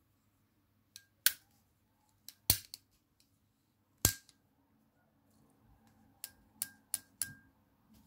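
Metal multitool being unfolded: the handles swing open and clack into place, giving a series of sharp metallic clicks, some with a short ring. Two loud clicks come about a second in and midway, and a quick run of four comes near the end as the pliers jaws open.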